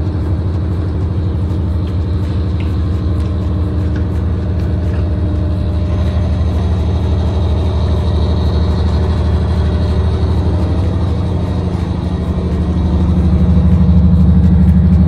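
Car ferry's engines giving a steady, loud low rumble, swelling slightly near the end.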